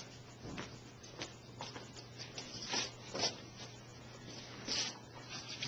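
Irregular rubbing, scraping and rustling of craft materials being handled on a bench, with a few louder scrapes around the middle and near the end, over a steady low hum.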